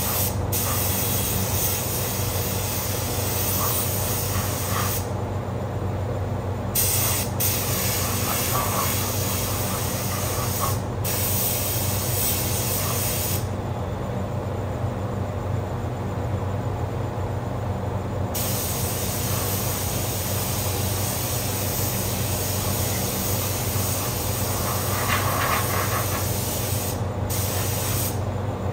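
Paint spray gun hissing as it sprays paint, in long stretches broken by short pauses as the trigger is let go, the longest about five seconds, a little before the middle. Under it runs the steady hum of a paint booth's exhaust fan.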